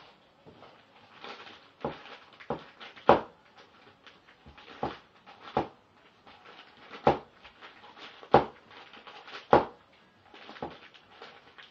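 A dog nosing and pawing at crumpled wrapping paper, making about nine sharp crinkles and rustles at irregular intervals from about two seconds in.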